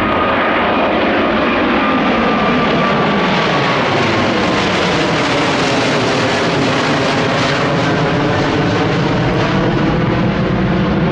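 KLM Boeing 777's twin GE90 turbofans climbing out after takeoff and passing overhead: a loud, steady jet roar. A thin high whine slides down in pitch over the first few seconds as the aircraft goes by.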